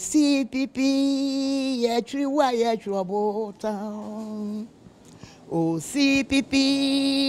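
Elderly woman singing solo and unaccompanied, in long held notes with a short pause about five seconds in.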